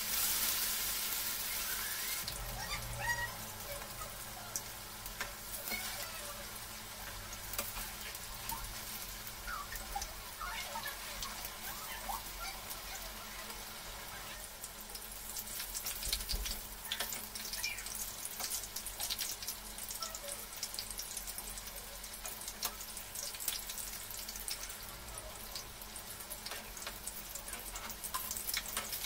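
Cheese potato cutlets deep-frying in hot oil: a steady sizzle with scattered pops and crackles. It is loudest in the first couple of seconds, as a fresh cutlet goes into the oil.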